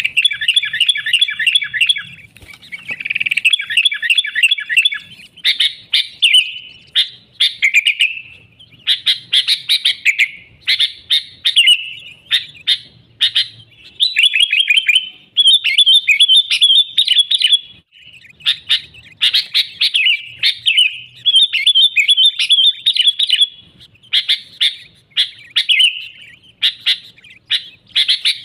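Sooty-headed bulbul (kutilang) singing vigorously: fast runs of clipped, bright chattering notes, in phrases of one to three seconds with short breaks between them.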